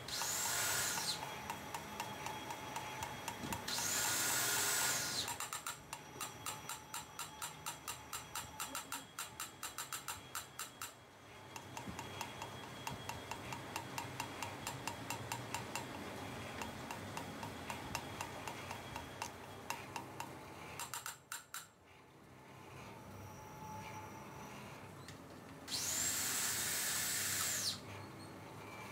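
Engine valve being hand-lapped into its seat in a cylinder head: a gritty scraping and rapid ticking as the lapping stick is spun back and forth, broken by three short, loud bursts of hiss.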